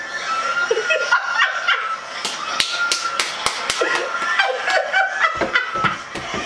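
A woman laughing excitedly and clapping her hands, with a run of about ten quick claps between two and four seconds in. A high, held scream sounds underneath in the first second or so.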